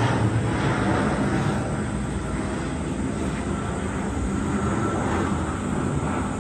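Propeller transport plane flying low overhead, a steady engine drone that slowly fades as the aircraft moves away.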